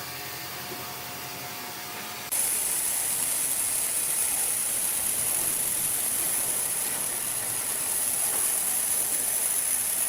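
Sawmill machinery running: a low hum, then about two seconds in a sudden, louder, steady hissing noise.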